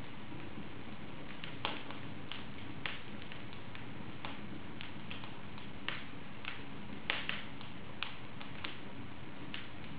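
Wood fire burning in an open fireplace: a steady low hiss of flames with irregular sharp crackles and pops, the loudest about seven seconds in.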